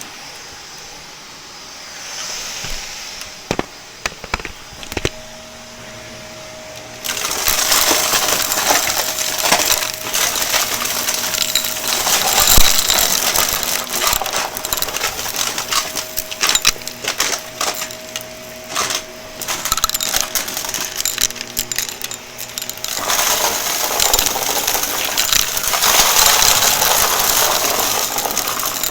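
Shark vacuum cleaner picking up crunchy debris: a dense crackling and rattling of bits rushing through it, over a steady motor tone. The crackling starts about seven seconds in, after a quieter stretch with scattered clicks.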